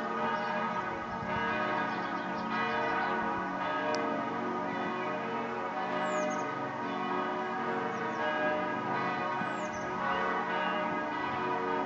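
Church bells ringing continuously, many bell tones sounding together and overlapping.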